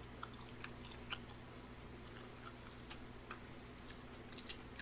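Faint chewing and mouth sounds of a person eating, with scattered small clicks, over a steady low hum.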